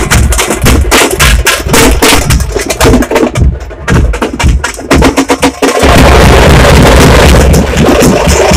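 Tamate frame drums and bass drums beaten hard and fast by a street drum troupe, a dense clatter of sharp stick strikes over deep thuds. About two-thirds of the way through, the separate strokes merge into a continuous loud din.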